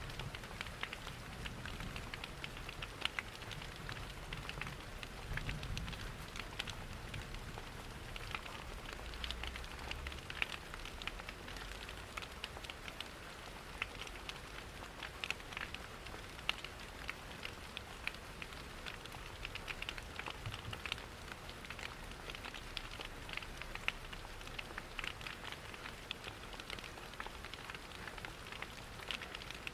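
Rain pattering steadily, mixed with the crackling of a wood fire in a fireplace, over a soft low rumble.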